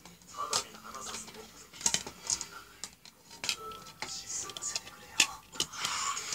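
Clear plastic CD jewel case being handled and opened, giving a run of hard plastic clicks and rattles as the disc is pried off its centre hub. The sharpest snaps come about two seconds in and again about five seconds in.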